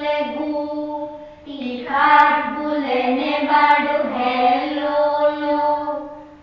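Young children reciting a rhyme in a sing-song chant, with long held notes. There is a short break about a second and a half in, and the chant fades off near the end.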